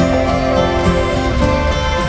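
Soft instrumental background music with long held notes.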